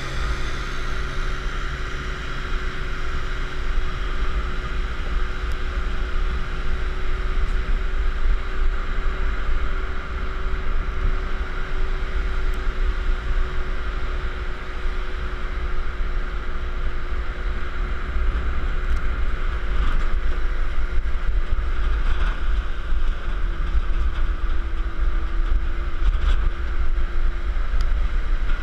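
Motorcycle engine running steadily, with heavy wind buffeting on the microphone as the bike travels.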